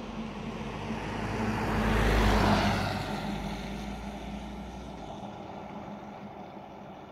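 A motor vehicle passing by, building to its loudest about two seconds in and then fading away, over a low steady hum that stops about five seconds in.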